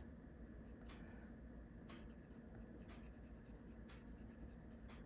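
Faint scratching of a coloured pencil laid lightly on paper, with soft strokes about once a second.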